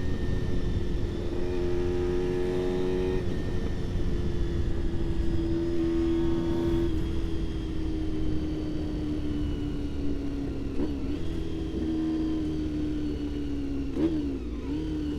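Honda RVF400 (NC35) V4 engine running under way at high revs, its pitch holding for the first few seconds and then sinking slowly as the bike eases off, with a quick rev blip about a second before the end.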